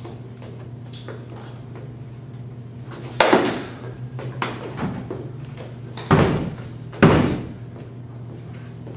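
A door banged hard three times, about three seconds in, six seconds in and again a second later, each bang ringing out briefly in the hall, with a few lighter knocks between the first two.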